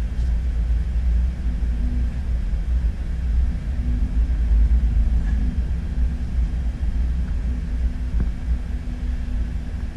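Low, steady rumble of a car's engine and tyres heard from inside the cabin as it rolls slowly at low speed.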